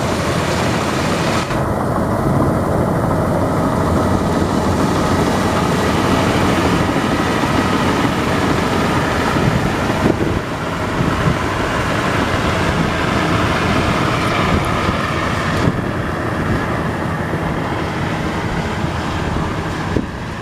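Combine harvester running at work: steady, loud engine and machinery noise.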